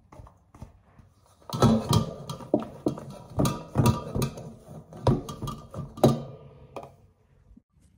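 Silicone spatula stirring and scraping thick grated-potato pancake batter around a stainless steel mixing bowl, with irregular knocks against the bowl and a faint ring from the metal. Light taps at first; the vigorous stirring starts about a second and a half in and stops near the end.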